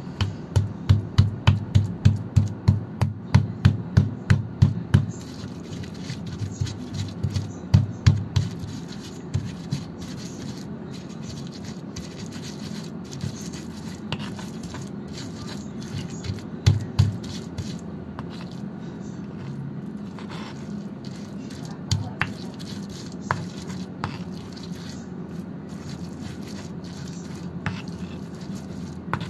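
Stone pestle on a volcanic-stone mortar (ulekan and cobek) pounding and grinding a spice paste: a quick run of knocks about three a second for the first five seconds, then scattered strikes and grinding scrapes as the paste is worked smooth.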